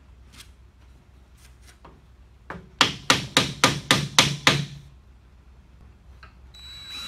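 A hammer tapping the wooden spreader bar into place between a wheel hoe's wooden handles: a quick run of about nine sharp strikes, roughly four a second, after a few light taps.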